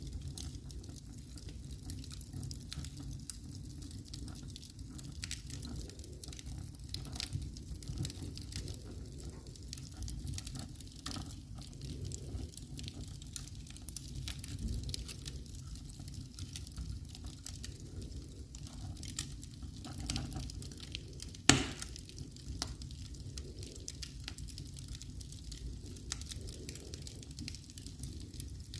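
Fire burning in a fireplace: a steady low rumble of flames with constant small crackles and pops, and one sharp, louder pop about three quarters of the way through.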